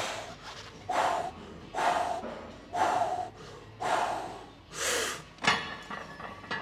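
A man's sharp, forceful breaths, six or seven of them about a second apart, as he braces to deadlift 500 pounds for a single rep.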